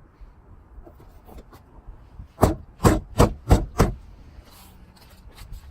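Five quick knocks, about three a second: the plastic master window switch panel being tapped by hand into the door armrest trim to seat it.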